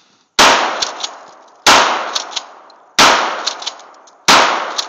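12-gauge shotgun fired four times in quick succession, about one and a third seconds apart, each shot fading over about a second and followed by a few sharp clicks.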